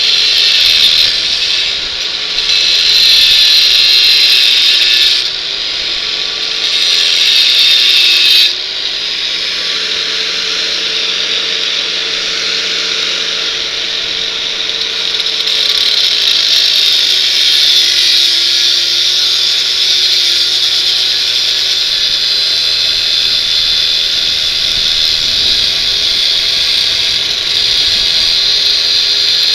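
Chicago Electric angle grinder running and cutting through a steel bicycle frame tube. Its motor whine dips in pitch under load, with louder stretches of cutting hiss in the first eight seconds.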